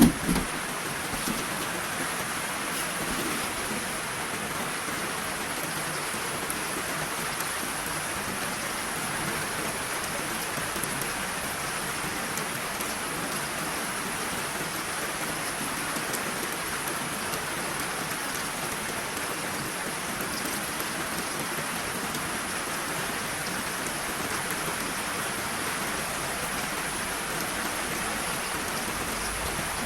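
Heavy rain falling steadily: an even, unbroken hiss, with one sharp knock right at the start.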